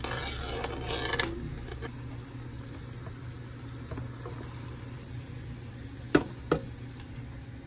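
Seasoned broth bubbling in an electric grill pan, over a steady low hum, with a splashing hiss over the first second as sesame oil is poured in. Meat and mushrooms then go in and are stirred, and two sharp knocks come close together about six seconds in.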